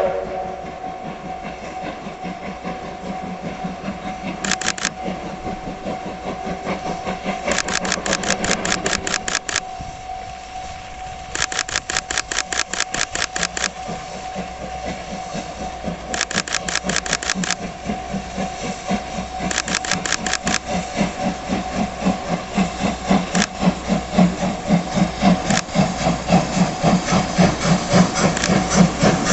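The SL Ginga's C58 steam locomotive working uphill under load, its exhaust beats coming in a steady rhythm that grows louder as it approaches. Several short bursts of rapid clicking sound over it.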